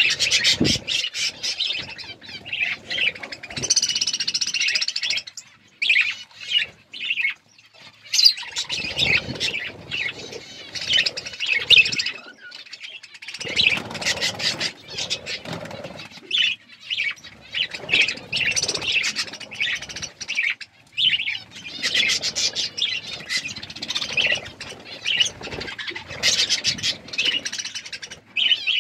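A group of budgerigars chirping and warbling, in busy stretches of rapid chirps broken by short pauses.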